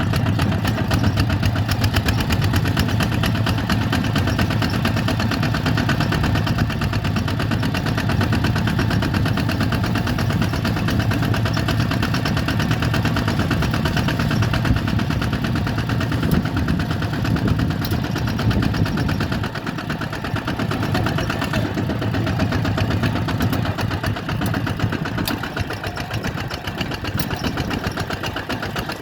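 Bulldozer's diesel engine running steadily with a fast, even beat; its low note weakens about twenty seconds in.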